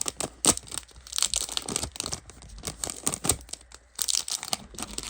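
Snug-fit plastic slab sleeve crinkling and scraping in irregular bursts as a hard plastic PSA graded card slab is pushed in and pulled out of it several times.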